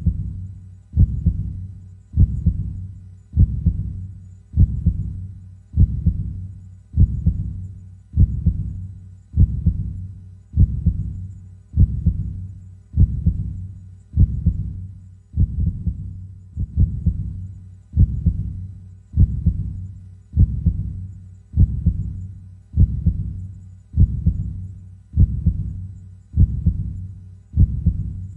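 Heartbeat: slow, steady, low thumps at about one beat every 1.2 seconds, each dying away before the next.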